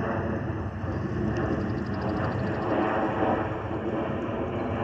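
Steady jet rumble from a Boeing 737-800's CFM56-7B turbofan engines as the airliner passes overhead.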